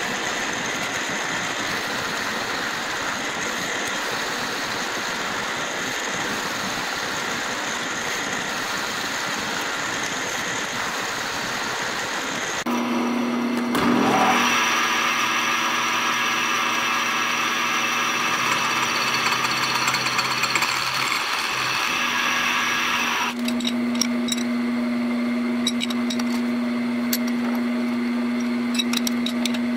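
Metal lathe running as it turns a small round metal part. About halfway through, a milling machine takes over, its spindle running with a steady hum as the end mill machines the part held in a three-jaw chuck.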